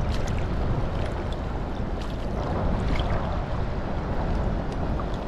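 Wind rumbling on the microphone over the sound of moving river water, with a few light ticks.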